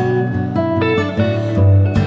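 Acoustic guitar music, with plucked and strummed notes over sustained low bass notes.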